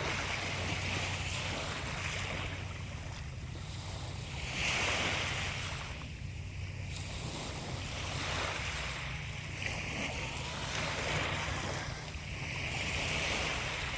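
Sea waves breaking and washing in, the surf noise swelling and ebbing every few seconds, with the biggest surge about five seconds in.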